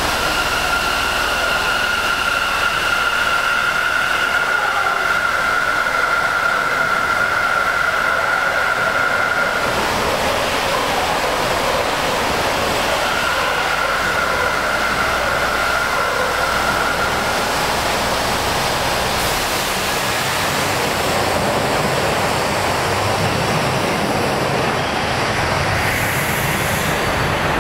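Sendai Subway Tozai Line linear-motor train running, a steady loud noise of wheels and air. A high steady whine sounds over it for the first ten seconds or so and comes back for a few seconds in the middle.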